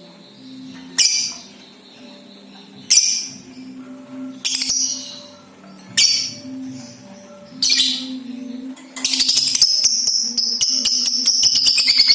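Balibu lovebird giving sharp, shrill single calls about every one and a half seconds, then breaking into a long, fast rattling chatter about nine seconds in: the 'ngekek' song that keepers play as a lure to set other lovebirds off.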